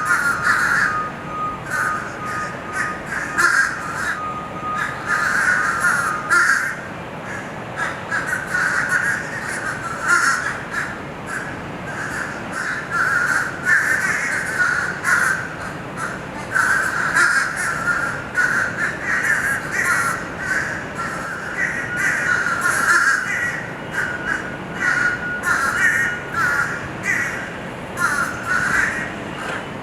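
Birds calling continuously in harsh, crow-like caws, many overlapping calls. A faint steady tone runs under them for about the first six seconds.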